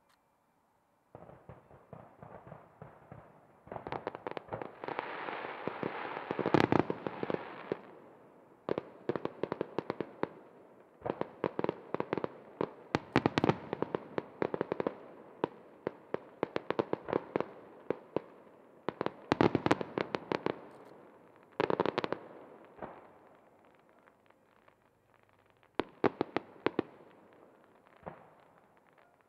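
Fireworks crackling and popping in dense, rapid volleys that come in several waves, starting about a second in.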